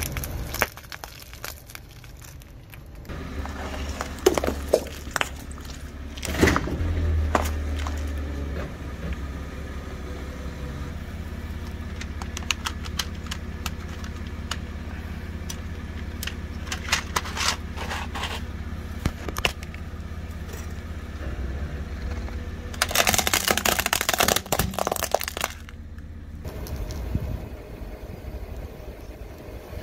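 A car's tyre rolling slowly over objects and crushing them, with scattered cracks and crunches over the low, steady rumble of the car's engine. About 23 seconds in comes a dense run of crackling lasting a couple of seconds, the loudest part.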